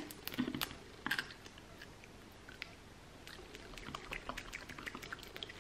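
Biting and chewing a crisp seaweed snack: a few sharp crunches in the first second or so, then fainter, scattered crackles as the chewing goes on.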